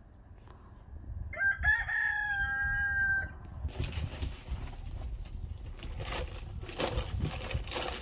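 A rooster crows once, about a second in: a short rising start, then a long held note lasting about two seconds. After it comes a stretch of irregular rustling and crackling noise.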